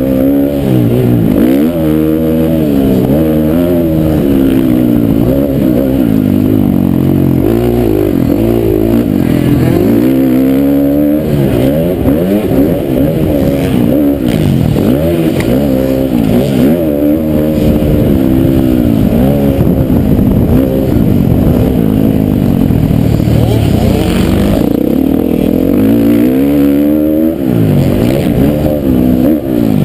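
Motocross dirt bike engine heard up close from the rider's position, revving up and dropping back over and over as the throttle is worked and gears are shifted around the track.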